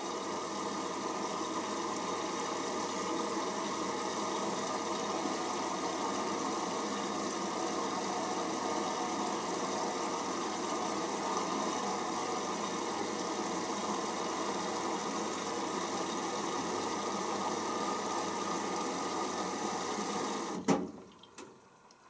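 Hoover Optima OPH714D washing machine taking in water through its inlet valve early in a pre-wash: a steady rushing hiss that cuts off suddenly with a click about a second before the end.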